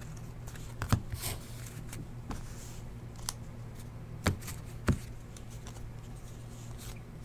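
Football trading cards being handled: cards slid and flicked against one another in the hands, giving a few sharp light clicks and snaps over a low steady hum.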